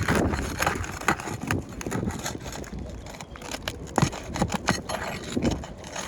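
A tool scraping and prying under asphalt roof shingles to work a nail loose: irregular scrapes and clicks, with one sharp crack about four seconds in.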